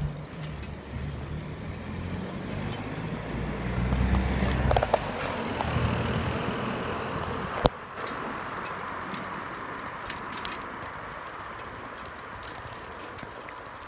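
Rumble and hiss of moving along a paved path beside a road, with wind on the microphone. The rumble swells about four to five seconds in, a single sharp click comes about halfway through, and then a thinner, steadier hiss remains.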